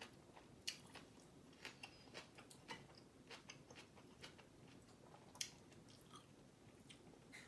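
A person eating bibimbap: faint chewing with irregular sharp clicks and smacks. The loudest clicks come just under a second in and again past five seconds.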